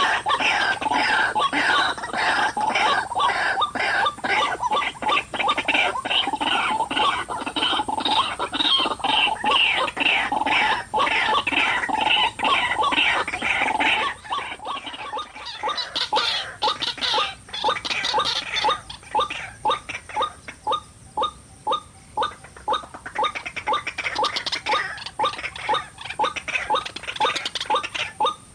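White-breasted waterhen calling: a dense run of rapid, repeated calls for the first half, then a steady series of short single notes, about two a second.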